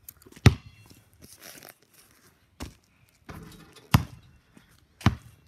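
A basketball hitting hard surfaces: four sharp thuds about one to two seconds apart, the first the loudest with a short ring after it.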